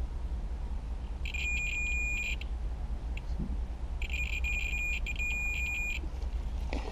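Multimeter continuity beeper sounding twice, a steady high beep about a second long, then a longer one of about two seconds with a brief dip midway, as the probes bridge the spliced wire and show it has continuity. A steady low hum runs underneath.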